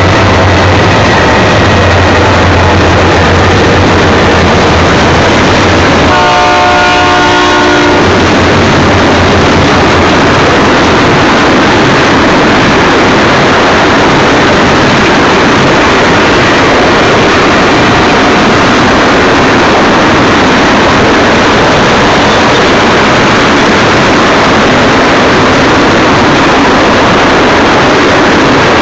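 A freight train of ethanol tank cars rolls past close by, a loud, steady rumble and rattle of wheels on rail. A low locomotive engine drone fades out about six seconds in, and a train horn sounds once for about two seconds at that point.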